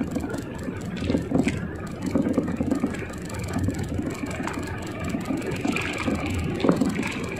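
Steady low rumble aboard a small outrigger fishing boat at sea: wind and water noise around the hull, with no clear engine tone.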